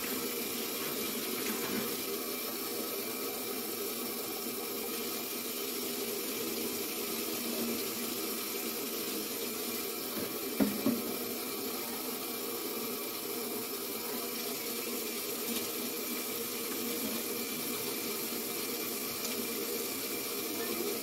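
Kitchen tap running steadily into a stainless-steel sink as things are rinsed under the stream, with two quick knocks about halfway through.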